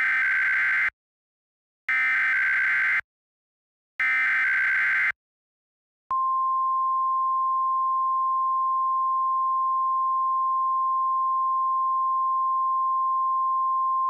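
Emergency Alert System SAME header: three buzzy digital data bursts, each about a second long and two seconds apart. About six seconds in, a steady single-pitch alert tone near 1 kHz begins and holds: the NOAA Weather Radio 1050 Hz warning alarm tone announcing a tsunami warning.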